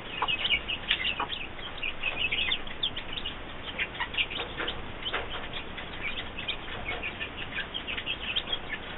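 Newly hatched chicks peeping constantly, many short high cheeps overlapping, with a few lower clucks from the broody hen among them.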